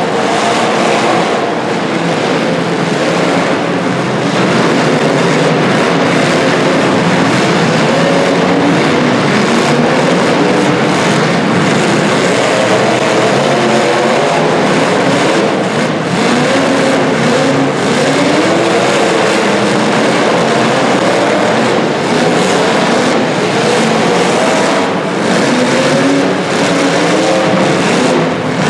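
Several demolition derby car engines revving up and down together, their pitch rising and falling continuously with hard acceleration.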